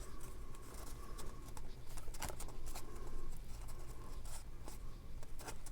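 Hands handling and pressing cardstock pieces: light paper rustling with scattered small taps and scrapes on the work surface, over a steady low room hum.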